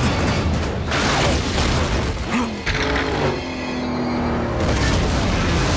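Action-film soundtrack mix: music score over a steady heavy low rumble with booming effects.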